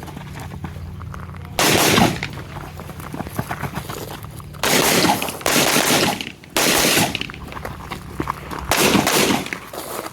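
Rifle gunfire in quick strings: about six bursts of rapid shots, one about two seconds in and the rest bunched in the second half.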